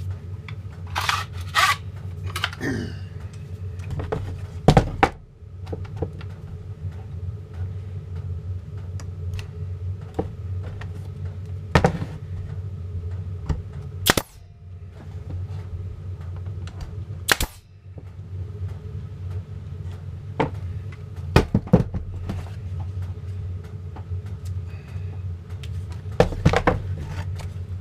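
Nail gun firing 15 mm nails into the wooden beehive frame: a series of sharp single shots a few seconds apart, the loudest about five seconds in, over a steady low hum.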